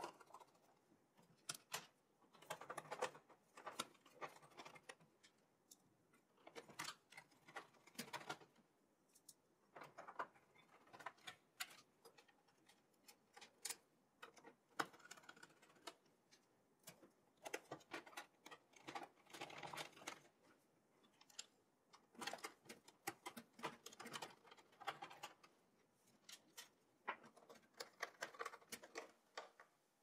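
Screwdriver fastening a PC motherboard into its case: quiet, irregular small clicks, ticks and light metal taps in scattered clusters.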